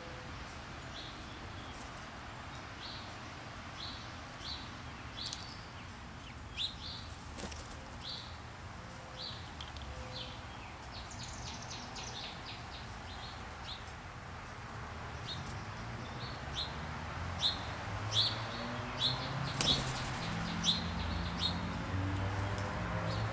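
Small birds chirping in many short, repeated notes, some falling in pitch. A low engine hum of a vehicle grows louder toward the end.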